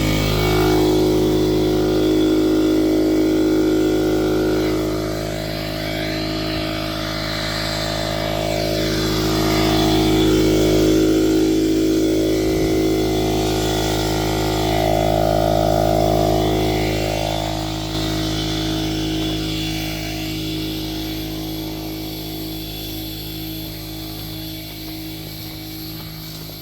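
A motor running with a steady hum, which grows fainter over the last several seconds.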